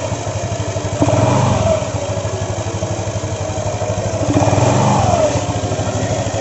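Yamaha NMAX scooter's single-cylinder engine running with the CVT cover off, blipped twice, about a second in and again past four seconds, each rev falling back to idle as the exposed belt and pulleys spin. With the loose front pulley nut now tightened, it runs calm, without the abnormal CVT noise.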